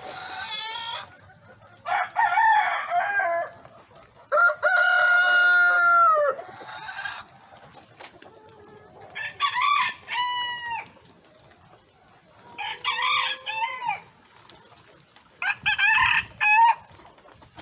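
Bantam roosters crowing, about six crows in all, each one to two seconds long, with quieter gaps between them.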